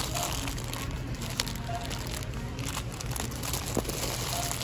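Plastic bags of milk chocolate chips crinkling as they are grabbed and pulled out of a cardboard display box, with a steady low hum underneath.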